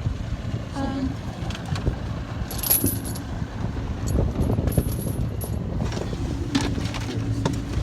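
A boat's motor idling with a steady low rumble, with scattered metallic clinks and knocks.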